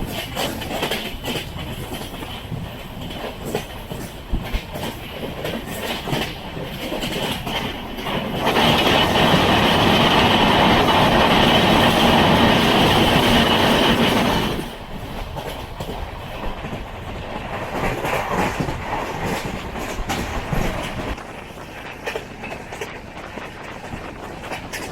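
Express train carriage running along the track, wheels clicking over rail joints. For about six seconds in the middle the rumble becomes much louder and fuller, then drops back.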